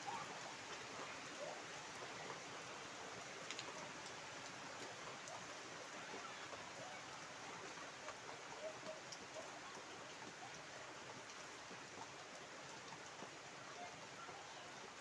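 Steady heavy rain falling into standing floodwater and on the surrounding foliage: a continuous, even hiss of drops splashing.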